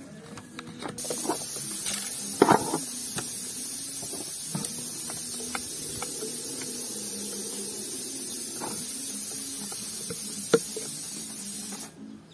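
A steady high hiss that cuts in about a second in and cuts out near the end, with scattered small clicks and knocks of handling.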